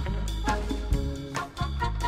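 Background music with a steady beat and bass line, swing-like in style.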